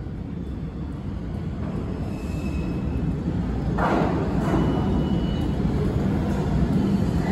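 An R142 subway train on the New York City Subway 2 line approaching through an underground station: a low rumble of wheels and motors grows louder, with a sudden surge of rail noise about four seconds in and a faint high whine.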